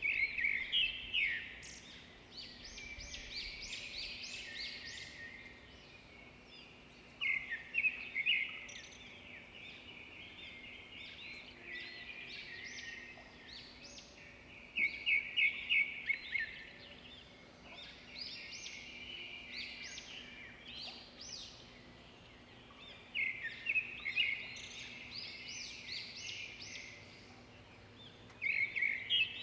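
Birds chirping: runs of quick high chirps come about every seven or eight seconds, with softer twittering in between. A faint steady hum sits underneath.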